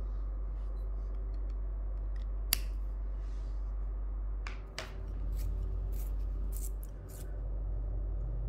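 Short scratchy strokes of a pen and coloured pencil on paper, with one sharp click about two and a half seconds in, over a steady low hum.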